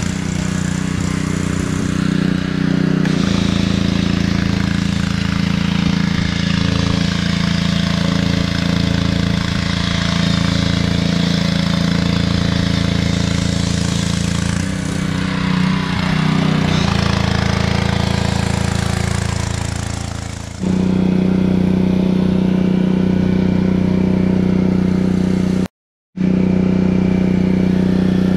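Gas pressure washer engine running steadily while the foam cannon sprays water and foam with a hiss. About twenty seconds in, the spray stops and the engine runs on alone. The sound cuts out briefly near the end.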